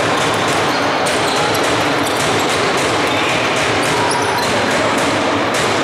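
Basketball dribbled on a wooden court in a reverberant sports hall, with repeated ball thuds, a few short squeaks and a steady background of hall noise.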